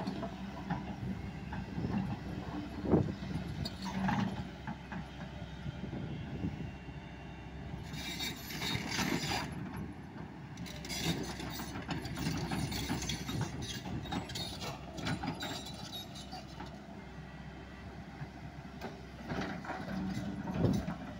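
Hyundai 210 crawler excavator's diesel engine running steadily under load while the bucket digs, with knocks and long rattling stretches of stones and dirt scraping and pouring.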